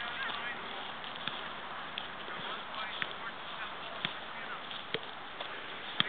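Steady open-air background noise with faint bird calls and a soft knock about once a second.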